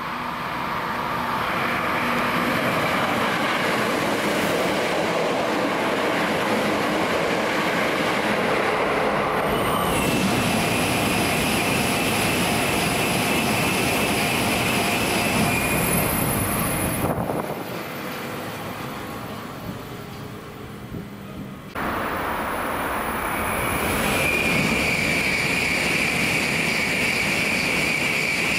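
Trains running past a station platform: a loud, sustained rushing rail noise. It drops sharply quieter for a few seconds past the middle, then comes back, and a steady high-pitched wheel squeal runs through the last few seconds.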